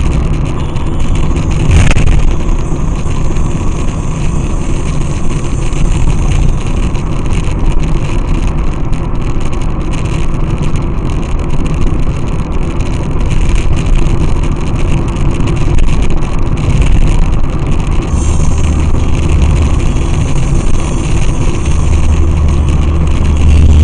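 Steady motor-vehicle driving noise: a loud, dense rumble of engine, tyres and wind. A short sharp sound comes about two seconds in, and a deep low hum swells in near the end.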